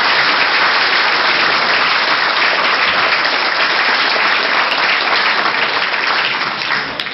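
Concert audience applauding, a dense steady clapping that starts to die away near the end.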